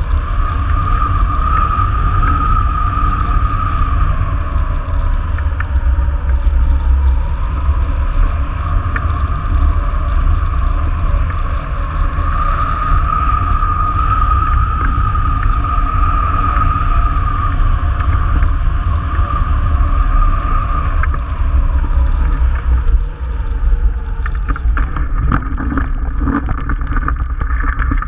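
Wind buffeting the microphone of a camera mounted on a tandem hang glider's wing in flight: a loud, steady low rush with a whistling tone that swells and fades twice. In the last few seconds the glider touches down, with knocks and scraping as it comes to rest on the grass.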